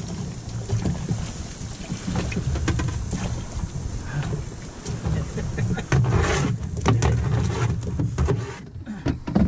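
Cast net being hauled out of the water: the rope and mesh pulled in hand over hand, with water splashing and running off the net, the loudest splashes about six seconds in and near the end. Underneath runs a low rumble of wind and water around a small boat.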